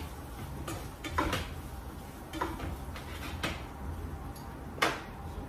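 Metal cutlery clinking and scraping against a frying pan of meat pieces: several separate clinks, the sharpest near the end, over a low steady hum.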